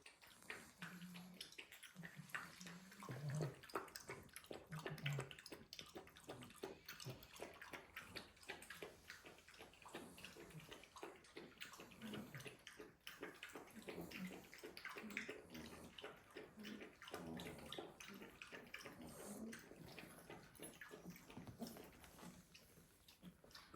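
Staffy puppies snoring and snuffling in their sleep, with short low snores in the first few seconds and many small irregular clicks and rustles throughout.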